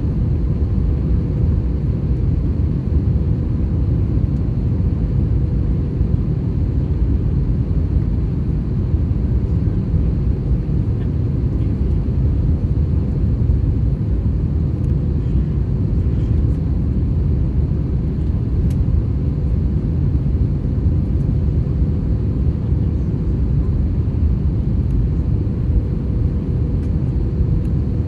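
Airbus A321 cabin noise: a steady low rumble of engines and airflow, with a faint steady hum above it, unchanging throughout.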